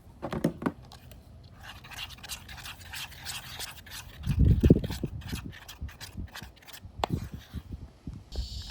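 Half-formed slime of white glue and activator being stirred with a mixing tool: irregular wet scraping and rubbing strokes, with one louder low bump about four and a half seconds in.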